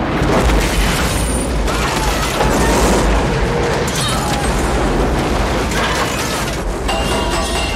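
A huge explosion in a road tunnel, as film sound effects: a loud blast that rolls on as one long rumble, with crashing and clattering debris through the middle.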